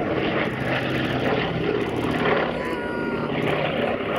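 A Boeing B-17 Flying Fortress's four Wright R-1820 Cyclone radial engines running steadily as the bomber flies past, loudest a little past the middle.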